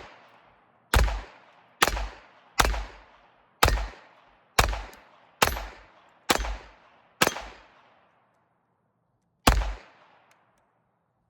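Taurus TX22 .22 LR semi-automatic pistol firing nine shots at a steady pace of about one a second. A longer pause comes before the ninth shot. Each sharp crack trails off in a short echo.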